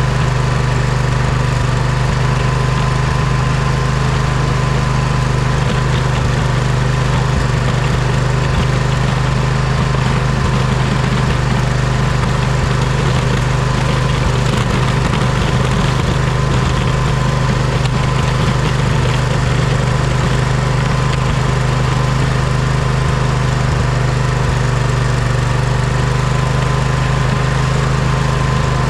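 Poulan riding mower's engine running at a steady speed, with a steady high whine over its hum and no change in pace.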